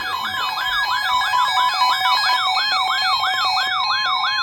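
Electronic alert siren that opens an Emergency Alert System message: a tone sweeping rapidly up and down about three times a second over steady held tones.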